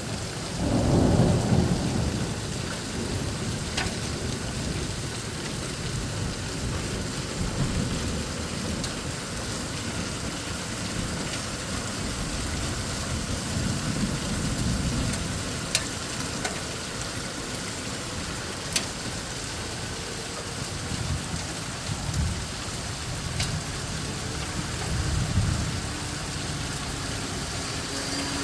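Heavy thunderstorm rain falling steadily, with small hail mixed in. Low rumbles of thunder swell about a second in, around the middle and again near the end, and a few single sharp taps stand out.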